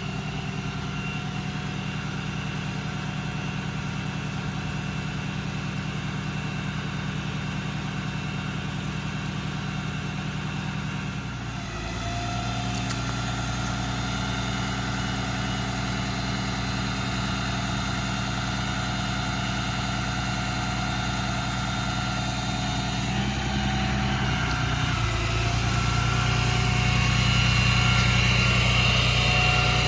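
Ram 5500's 6.7 Cummins diesel running steadily while the hydraulic crane is operated. The engine note shifts about twelve seconds in and again near twenty-five seconds, getting a little louder toward the end.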